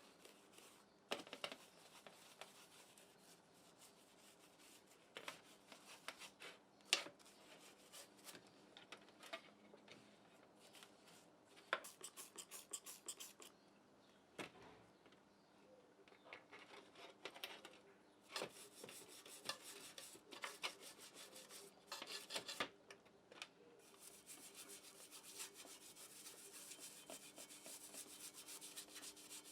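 Faint hand work: intermittent rubbing and scraping, with scattered light clicks and taps and a denser stretch of rubbing near the end.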